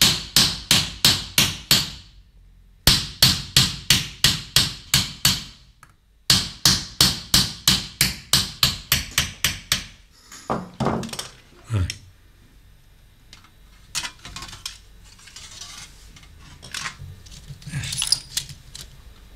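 A hammer striking a broad doming punch against a silver sheet in repoussé work, raising the metal from the centre outward. It goes as quick, even blows, about five a second, in three runs with short pauses, followed by scattered lighter taps.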